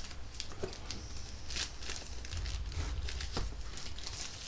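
Packaging being handled: plastic and cardboard rustling and crinkling, with scattered light clicks and taps, over a steady low hum.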